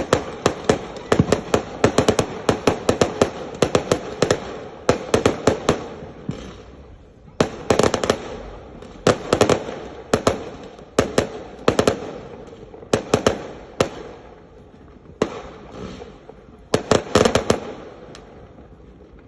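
Fireworks going off in rapid volleys of sharp bangs and crackles, the clusters coming every second or two and thinning out near the end.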